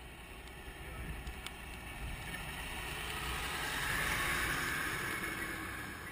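Heavy semi-truck and its long multi-axle trailer, loaded with a wind turbine section, passing close by: engine and tyre noise swells to a peak about four seconds in and then fades. A steady low rumble of wind on the microphone runs underneath.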